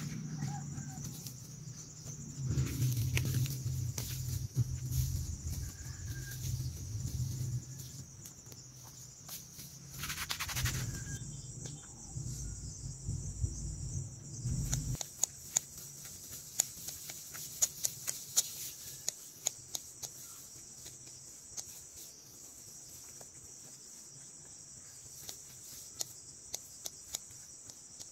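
Insects buzzing steadily at a high pitch, with the rustle and crisp snaps of grass stems being cut by hand. A low rumble fills the first half and stops suddenly about fifteen seconds in.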